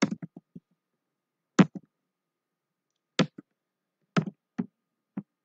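Computer keyboard keys pressed in slow, irregular keystrokes: a quick run of taps at the start, then single strokes about a second apart, the loudest about a second and a half in.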